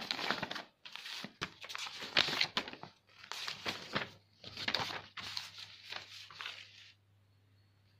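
Sheets of paper rustling and flapping as documents are handled and leafed through, in a run of quick bursts that stops about a second before the end.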